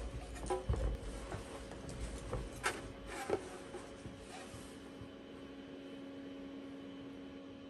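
Faint room tone with a steady low hum, broken during the first three and a half seconds by a few scattered light knocks and clicks from handling things near the microphone.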